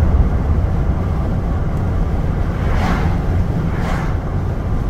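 Steady road and engine rumble inside a pickup truck's cab while cruising on a paved highway. Two brief swells of hiss come about three and four seconds in.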